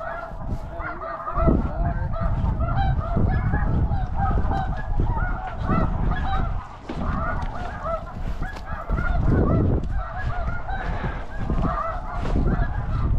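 Many snow geese honking at once: a dense, continuous chatter of overlapping high calls, with intermittent low rumbling underneath.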